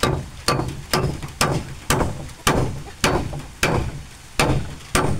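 Hammer driving a candle-waxed 4-inch nail into hardwood timber: about ten sharp blows, roughly two a second, each ringing briefly.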